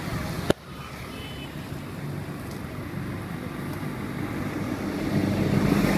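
Street traffic ambience: a steady low rumble of passing motor vehicles that grows louder near the end, with a sharp click about half a second in.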